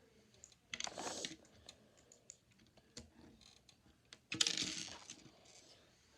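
Small plastic Lego pieces clicking and clattering as hands sort through them, with two louder rattling bursts, one about a second in and one just past four seconds.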